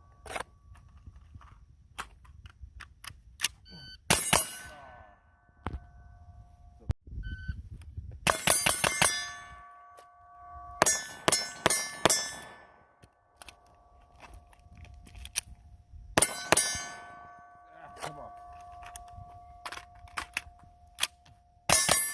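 Shots from a 13.7-inch-barrel AR-15 rifle fired singly and in quick strings of several, each volley followed by the ringing tone of struck steel targets that hangs on for a few seconds.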